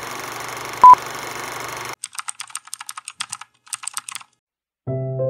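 A film-countdown sound effect: a steady hiss with one short, loud high beep about a second in. Then a laptop keyboard typed on in two quick runs of keystrokes. Soft music starts near the end.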